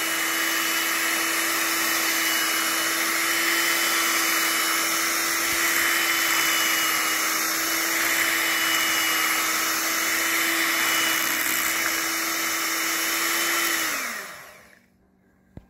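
Electric hand mixer running steadily at one speed, its beaters whirring through thin vanilla pudding and milk; it is switched off about 14 seconds in and the motor's whine falls away, followed by a light knock just before the end.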